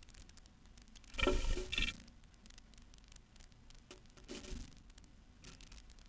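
A chickadee scratching and tapping at a wooden nest box: faint clicks and scrapes throughout, with a louder scuffle about a second in and a weaker one just past four seconds.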